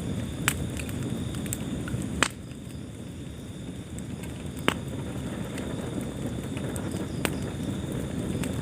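Wood fire burning in a fireplace: a steady low rumble with sharp crackling pops, four louder ones standing out a couple of seconds apart.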